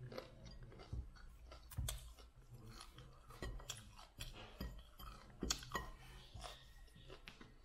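Raw broccoli being bitten and chewed: irregular crisp crunches and snaps of florets and stalk, the loudest crunch about five and a half seconds in.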